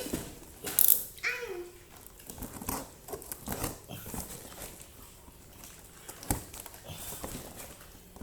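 Irregular clicks, snaps and scraping of a cardboard parcel holding a bow being pulled open by hand, with a loud crackling burst about a second in.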